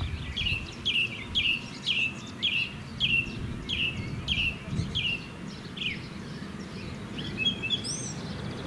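A songbird singing a run of about a dozen short, repeated downward-sliding notes, roughly two a second, that stops about six seconds in; a single higher note follows near the end.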